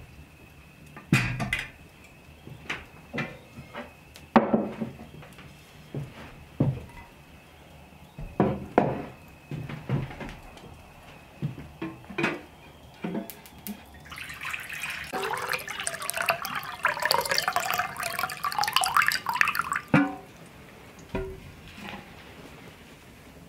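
Tin vessels knocking and clinking as they are handled, then water poured from a tin pitcher into a glazed earthenware bowl for about six seconds, filling it, before the pour stops.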